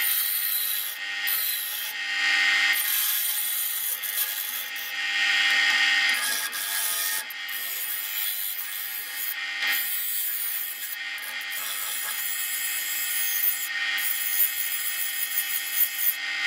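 Double bench grinder's abrasive wheel grinding the steel blade of an old meat axe to reshape it. It makes a steady high hiss of metal on stone that swells and eases as the blade is pressed in and let off.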